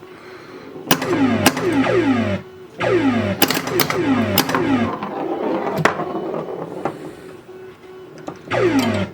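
Electronic sound effects from a 1980 Williams Scorpion solid-state pinball machine: several falling-pitch synthesized sweeps, some overlapping, in three bursts. Sharp clicks of playfield switches and solenoids come in among them as the ball is in play.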